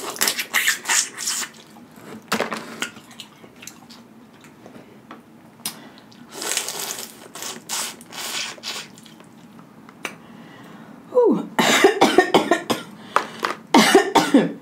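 Close-miked eating of boiled crawfish: shells cracking and being peeled, and wet sucking and slurping at the meat and heads, in bursts of sharp crackles. About three seconds before the end comes a denser run of crackling mixed with short throaty vocal sounds falling in pitch.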